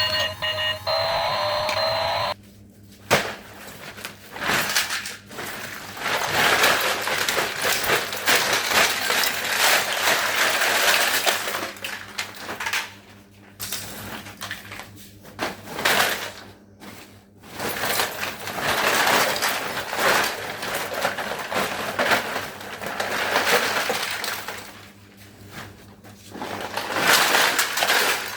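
Hard plastic toys clattering and rattling against each other as a pile of old toys is rummaged by hand, in uneven bursts with brief pauses.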